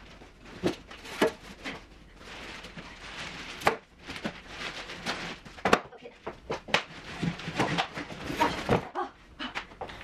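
A large cardboard fridge box being worked up and lifted off the fridge: cardboard scraping and rustling, with scattered knocks and bumps throughout.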